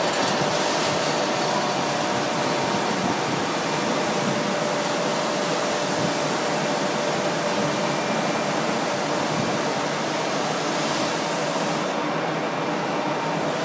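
Steady whirring hiss of a BTA deep hole drilling machine running, with a faint steady whine under it.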